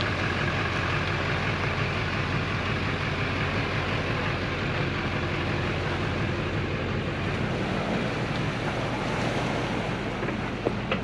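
A vehicle engine running steadily with a low drone, mixed with wind noise on the microphone.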